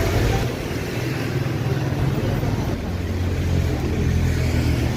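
A motor vehicle's engine running close by: a steady low rumble with a hum at one pitch.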